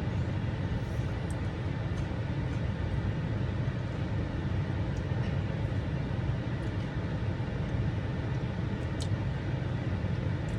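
Steady low rumble of a vehicle engine idling, with one faint click about nine seconds in.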